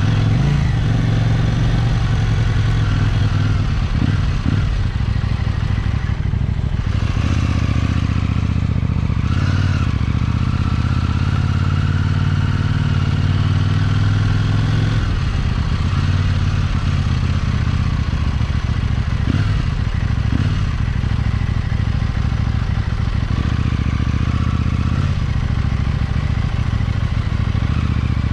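KTM 790 Duke's parallel-twin engine running at low speed, its pitch shifting up and down a few times with the throttle.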